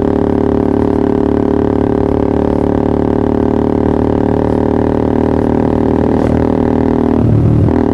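Yamaha R15 V3's 155 cc single-cylinder four-stroke idling steadily through a Pro Liner TR1 aftermarket exhaust, with a deep, even drone. About seven seconds in the throttle is blipped briefly.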